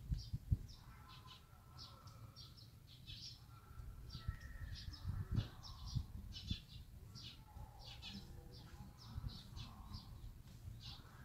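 Small birds chirping in short, high notes, over and over, over a low rumble. A sharp thump about half a second in.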